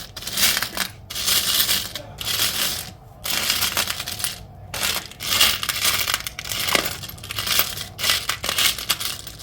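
A pile of small metal charms being raked and stirred through by hand, jingling and clinking in repeated bursts roughly once a second.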